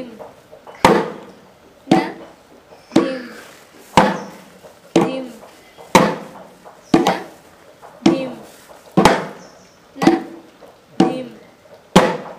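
Mridangam drum strokes, about one a second with some doubled, each ringing out with a pitched note that sometimes slides in pitch as the bass head is pressed.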